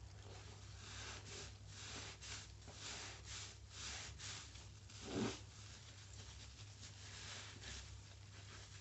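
A soaked sponge squeezed and kneaded in soapy water with gloved hands: a quick run of wet squelches, about three a second, a louder squelch about five seconds in, then softer squeezing.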